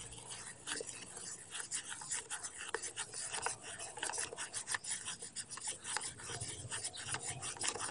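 Homemade shampoo-and-body-wash slime being handled and squished, giving faint, irregular sticky clicks and crackles.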